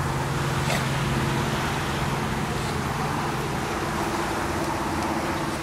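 A steady low engine hum over a rushing haze, like a motor or traffic running at an even pitch, easing slightly in the second half.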